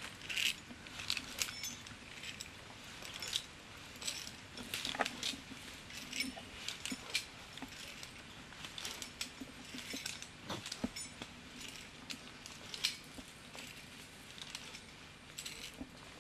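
Metal climbing hardware on a harness and rope clinking irregularly, a scatter of short light clicks while a climber ascends the rope.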